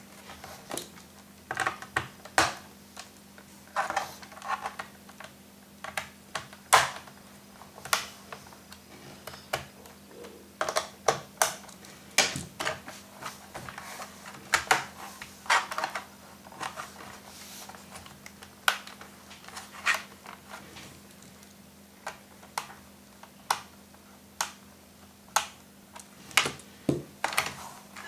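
Fingers prying at the plastic hard-drive compartment cover on the underside of a Dell Vostro 1015 laptop: irregular sharp plastic clicks and taps as the lid is worked loose.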